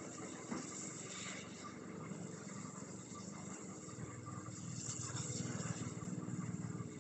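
Steam tank locomotive running on the adjacent track, a steady low rumble with a hiss over it, getting slightly louder near the end.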